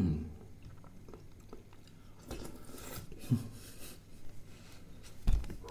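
Close-miked eating sounds of a man taking thin kheer (rice pudding) from a spoon: chewing and mouth noises, a noisy stretch about two and a half seconds in, and short low thumps near the middle and near the end.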